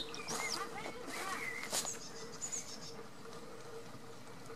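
Small birds chirping in short, high calls, mostly in the first three seconds, over a faint steady hum, with a couple of sharp rustling clicks.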